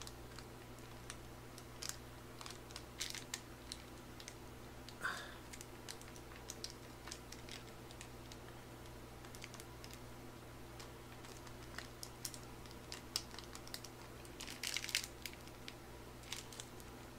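Faint crinkling and small clicks of a plastic sauce pouch being squeezed out by hand, with a denser run of crinkling near the end, over a steady low hum.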